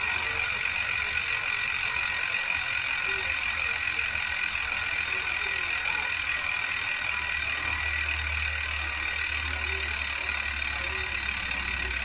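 Weapon Ambush bicycle rear hub freewheeling: the freehub's ratchet runs as a fast, even buzz that never breaks, after three months of riding. A low rumble joins it about halfway through.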